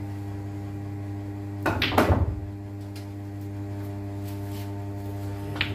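Pool balls clacking: the cue strikes the cue ball and the balls knock together about two seconds in, with one more single click near the end. A steady electrical mains hum runs underneath.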